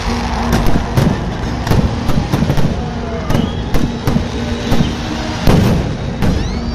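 Fireworks going off: an irregular string of sharp bangs, about two a second, over a continuous crackling.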